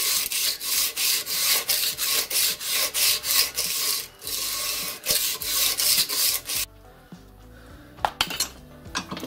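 Hand file scraping back and forth along the edge of a brass strip clamped in a vise, about three strokes a second. The filing stops about two-thirds of the way through, and a few metallic clinks follow near the end as the tool is set down.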